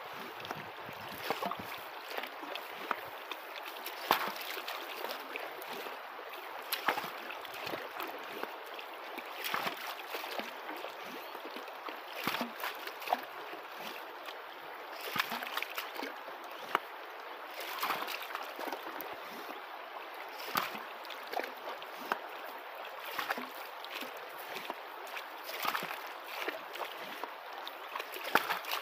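Shallow gravel creek flowing steadily, with irregular splashes, gurgles and sharp gravel clacks as a PVC hand-pump dredge sucks up creek-bottom material and is emptied into a bucket.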